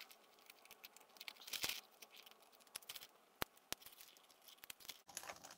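Faint handling of paper and card, a short rustle and a few light sharp clicks.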